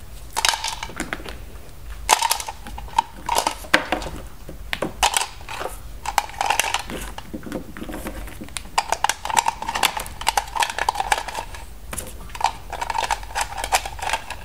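Hard plastic toy pieces being handled and fitted together: the hollow body and back-piece of a Playskool Mrs. Potato Head give an irregular run of sharp clicks, taps and light scrapes.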